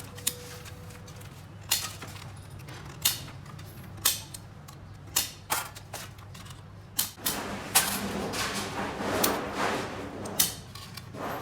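Metalworking on sheet-metal stove parts: sharp metal clicks and knocks at irregular intervals, roughly one a second, over a steady low hum, with a rushing noise for a few seconds near the end.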